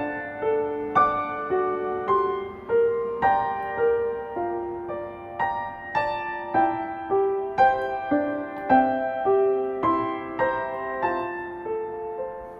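Gentle solo piano background music: slow chords and a melody, with notes struck about twice a second and left to fade.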